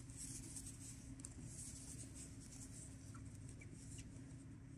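Faint soft ticks and rustle of wooden knitting needles and yarn as stitches are knit, over a low room hiss.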